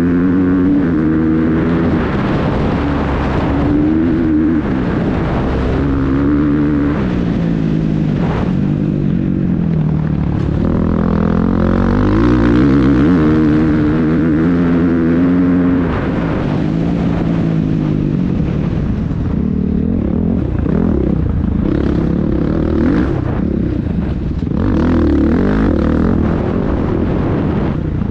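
Dirt bike engine heard from the bike itself, revving up and falling back again and again as the rider throttles and shifts along a dirt track, with wind noise on the microphone.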